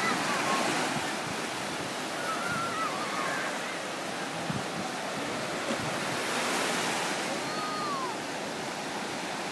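Sea surf washing steadily on the shore, with a few faint high calls in the distance.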